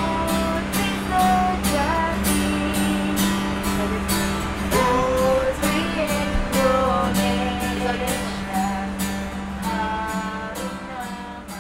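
Music led by a strummed acoustic guitar, with a melody over the steady strumming, fading out near the end.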